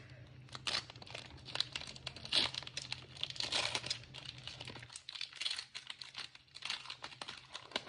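Foil Pokémon booster pack wrapper crinkling and being torn open, in quick irregular crackles.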